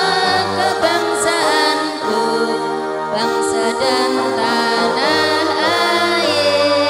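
Women's choir singing a sholawat, an Islamic devotional song, with held, wavering notes over sustained electric keyboard chords, amplified through a PA system.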